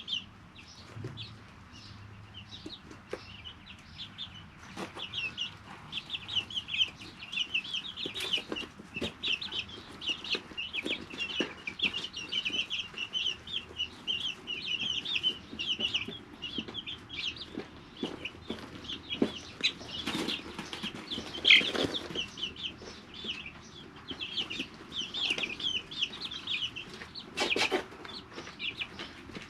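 A brooder of 3-week-old chicks peeping constantly in many short high chirps, with scattered clicks and a couple of louder knocks, one about two-thirds through and one near the end.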